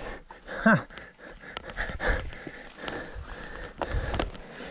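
Mountain bike rolling along a dirt trail: steady tyre noise with scattered knocks and rattles from the bike over the ground, and a short falling squeak about a second in.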